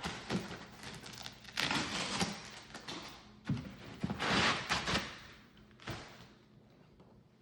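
Cardboard box and packing material being handled: rustling and scraping with several dull thumps, dying down near the end.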